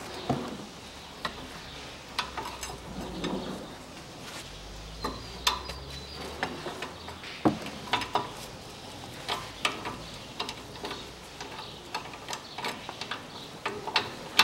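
Irregular metallic clicks and clinks of a long-handled wrench working the 19 mm caliper bolts on a Ford Ranger's front brake caliper, in small clusters.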